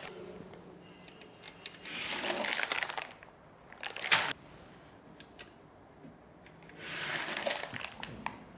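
Plastic jelly mould sheets and trays being handled, giving soft crinkly rustles in three spells: one about two seconds in, a brief louder one just after four seconds, and another near the end, with a few light clicks between.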